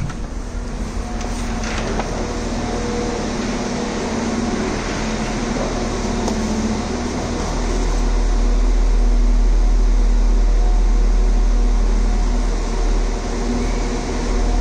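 Steady mechanical hum of a train standing at a railway station platform, with a few steady tones running through it. A deep rumble swells up about halfway through and holds.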